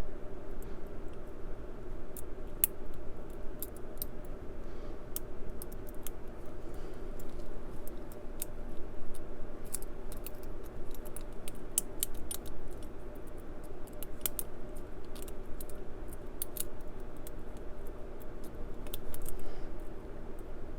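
Lock pick and tension wrench working the pins of a 50 mm solid brass Brinks padlock: irregular light metallic clicks and scrapes, over a steady low hum.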